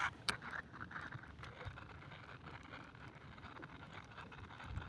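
Baitcasting reel: one sharp click shortly after the start, then faint, irregular ticking as the handle is cranked to retrieve the lure.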